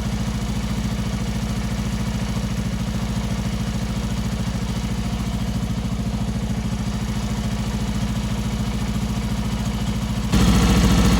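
Honda TLR200's single-cylinder four-stroke engine idling steadily with an even exhaust beat, running on a test run. About ten seconds in it suddenly becomes louder.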